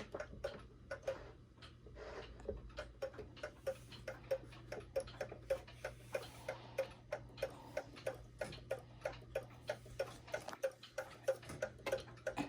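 1929 E. Ingraham tambour mantel clock movement ticking evenly, about three ticks a second. It is an old, worn-out and dirty movement with regulation issues.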